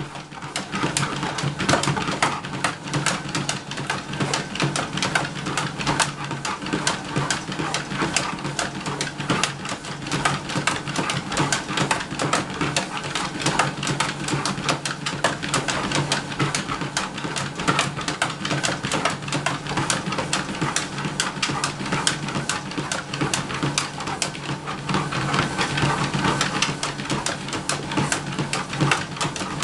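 Motorised treadmill running with a steady low hum, under quick, continuous tapping of a labrador's paws and claws on the moving belt.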